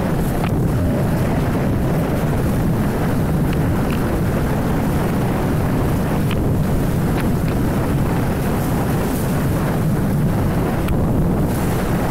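CFMoto Cforce 1000 ATV's V-twin engine running steadily at low trail speed, mixed with wind buffeting the microphone. A few faint clicks scattered through.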